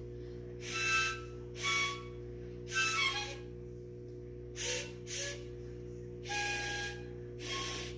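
Small toy wind instrument blown in about seven short, breathy toots, each a rush of air with a thin pitch in it, some in quick pairs.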